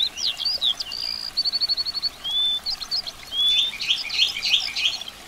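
Birds singing: a run of quick chirps, rapid trills and short whistles from several birds, busiest near the end.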